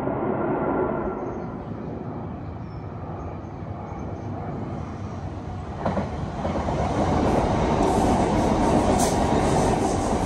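A train running through a railway station. Its rumble eases, then grows louder and brighter from about six seconds in, just after a sharp click.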